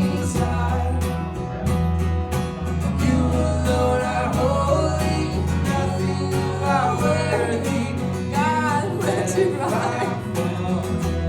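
Live worship band playing a song: singing over strummed guitar with sustained low bass notes underneath.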